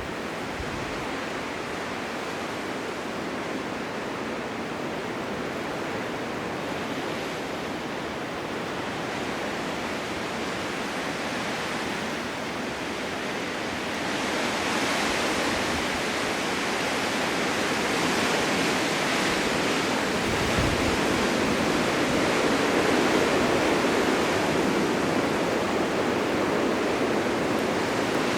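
Blizzard wind: a steady rushing hiss with no distinct gusts or impacts, growing louder and brighter about halfway through.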